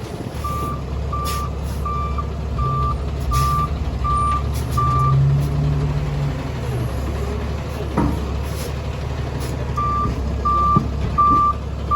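Heavy demolition equipment's engine running, with its back-up alarm beeping at a steady pace of about three beeps every two seconds. The beeping stops for a few seconds midway and starts again near the end. The engine rises briefly about five seconds in, and a sharp knock comes about eight seconds in.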